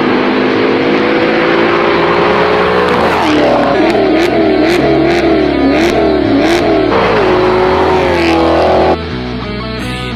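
Straight-piped Maserati GranTurismo S V8 exhaust revving and accelerating, its pitch climbing, with rock music underneath. About nine seconds in the engine drops out, leaving only the rock music.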